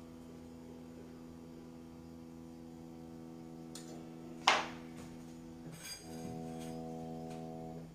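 Steady electrical hum, with one sharp clink of tableware about four and a half seconds in. Near the end the hum changes tone and gets a little louder.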